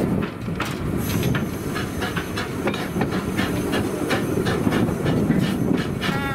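Replica of Stephenson's Rocket steam locomotive under way, heard close from its footplate: a steady rumble with steam hissing and a run of sharp knocks and clatter from the moving engine and its wheels on the rails.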